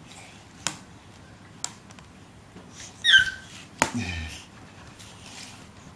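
A baby's short, high squeal of delight about three seconds in, sliding down in pitch, among a few sharp taps and clicks.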